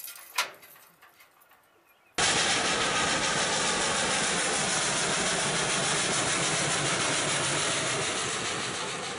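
Steam locomotive, Western Maryland No. 734, a 2-8-0, passing under way: a loud, steady rush of exhaust and running gear that starts abruptly about two seconds in and eases a little near the end.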